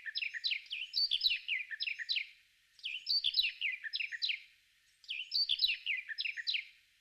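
Bird song: three phrases of rapid, high chirps, each note sliding downward, with short pauses between the phrases.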